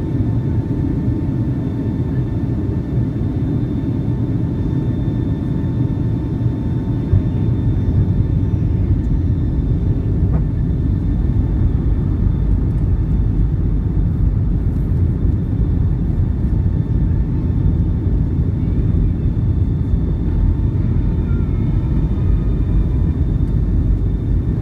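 Cabin noise inside a jet airliner descending to land with flaps extended: a steady rumble of engines and airflow, with a thin steady whine running through it.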